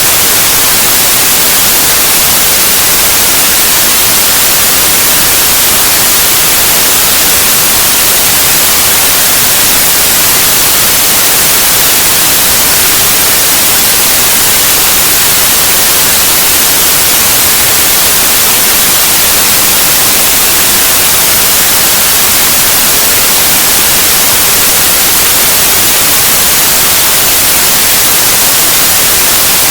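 Synthetic white noise: a loud, steady, even hiss with no change or pattern, brightest in the high treble.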